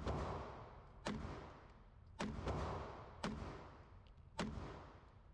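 Beretta 87 Cheetah .22 LR pistol firing a steady string of shots, about one a second, each crack ringing out in the reverberation of an indoor range. The pistol is cycling normally.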